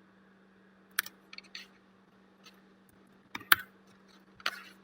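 Scattered clicks of a computer keyboard, about six in all, the loudest about three and a half seconds in, over a faint steady hum.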